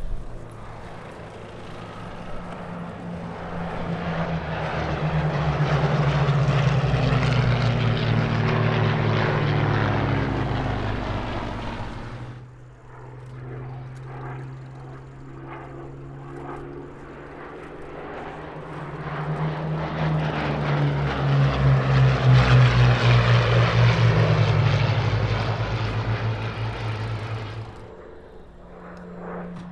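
Hawker Hurricane fighters' Rolls-Royce Merlin V12 piston engines flying past twice. Each pass swells up and then drops in pitch as the aircraft go by, and the first pass cuts off abruptly a little before halfway.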